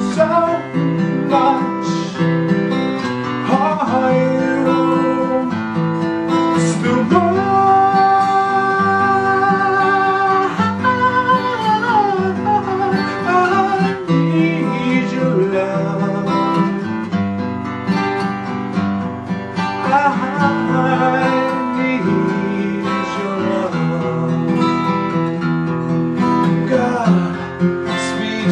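Acoustic guitar played as a slow ballad accompaniment, with a man's voice singing over it and holding long, wavering notes.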